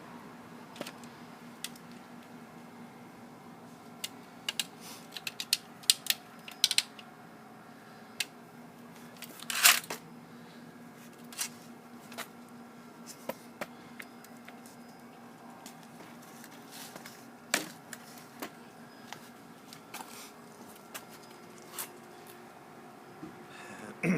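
Irregular light clicks and taps with a few short scraping rustles, over a faint steady hum.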